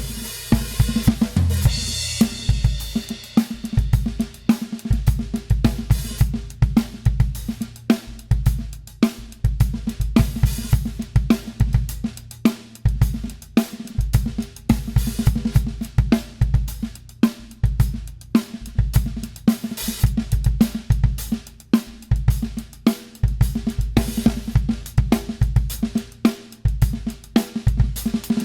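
Acoustic drum kit played in a steady groove: bass drum, snare and hi-hat, with a cymbal crash about two seconds in and fills along the way.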